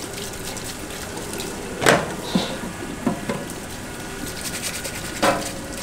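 Tap water running into a stainless steel sink as raw crab pieces are scrubbed clean under it, with a few sharp knocks, the loudest about two seconds in.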